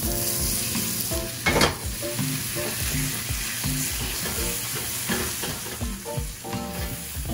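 Steak searing in hot oil in a cast-iron skillet: a steady sizzle, with a brief louder burst about a second and a half in.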